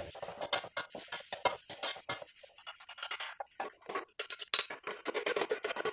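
Wooden spatula scraping and knocking against a steel wok as fried rice is stirred and tossed, in quick, irregular strokes; the loudest comes a little past halfway.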